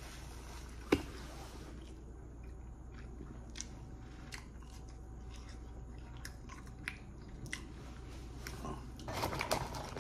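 A person chewing a mouthful of chicken sandwich close to the microphone, with small wet mouth clicks and one sharper click about a second in. Rustling near the end.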